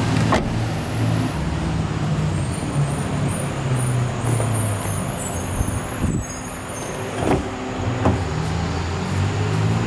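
A motor vehicle's engine running steadily, a low hum, with a few brief clicks.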